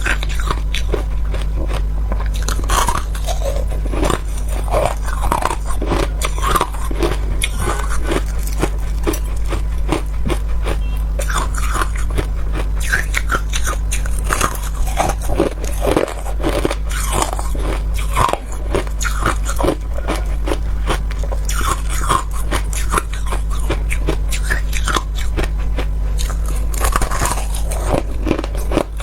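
Ice being bitten and chewed close to the microphone: continuous crunching and cracking of hard ice between the teeth, over a steady low hum.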